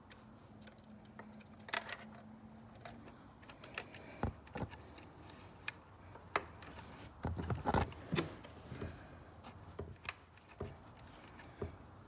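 Hands handling a fuel injector's wiring and plastic connector: scattered light clicks, taps and rattles, with a small cluster of them about seven to eight seconds in.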